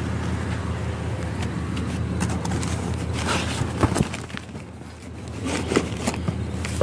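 Rummaging through a dumpster: bags and packaging rustling, with scattered knocks and scrapes, over a steady low hum.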